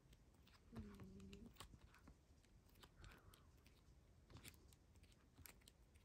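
Near silence, with faint scattered clicks and rustles of a paperback art book's pages being turned by hand, and a brief faint hum about a second in.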